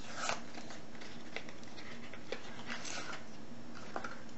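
Light handling noises of a small padlock being turned over in the hands: a few small, sharp clicks and brief rustles over a steady low hum.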